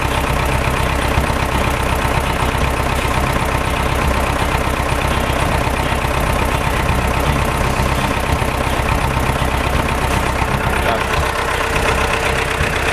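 Diesel engine of a Balkancar DV-1792 micro forklift running steadily.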